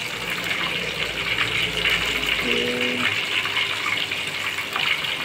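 Battered mackerel deep-frying in a wok of hot oil: a steady sizzle with many small crackles.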